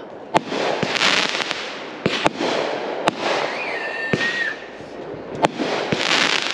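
Aerial fireworks going off overhead: a string of sharp bangs, about a dozen spread irregularly, with dense crackling hiss from crackling stars swelling twice. A short whistling tone sounds near the middle.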